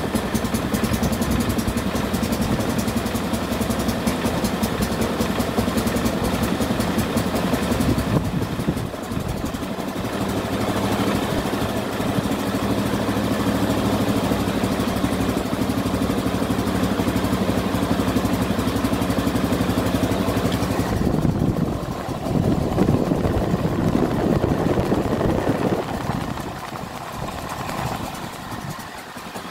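Petrol rotary lawnmower engine running steadily with the self-propelled drive engaged. The drive shaft spins but the rear wheels don't turn, a drive fault that the owner can't yet place. The engine note changes about eight seconds in and again about twenty-one seconds in, and the sound gets quieter near the end.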